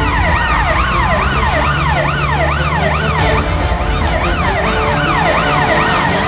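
Police vehicle siren wailing, its pitch sweeping up and down about twice a second and breaking off briefly a little past the middle, over background music.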